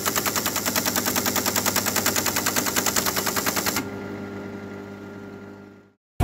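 Paper-tape punch clattering rapidly at about ten strokes a second, stopping abruptly a little under four seconds in. Its motor hum carries on and fades out.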